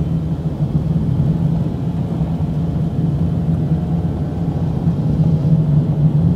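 Car engine and road noise heard from inside a moving taxi: a steady low drone, growing a little louder near the end.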